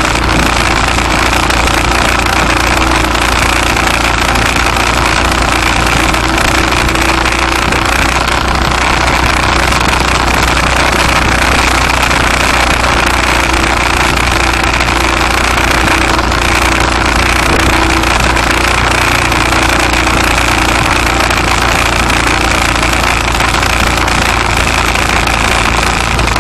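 Vehicle engine and road noise, heard on board while driving, loud and steady throughout.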